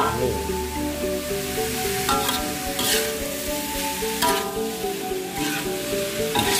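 Diced tofu sizzling in hot oil in a wok while a metal spatula stirs it, with a few scrapes of the spatula against the pan. A melodic background music track plays over it.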